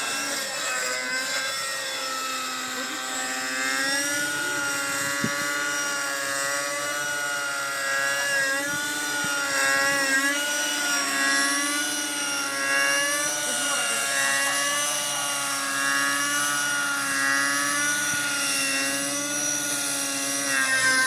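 Engine-powered RC helicopter in flight: a steady engine and rotor whine whose pitch rises and falls over and over as it is flown.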